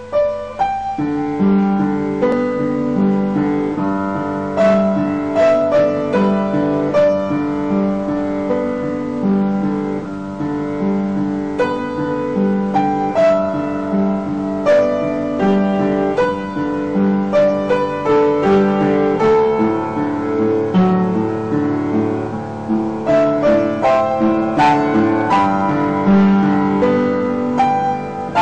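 Background piano music, a steady flowing melody of repeated notes over a chord accompaniment.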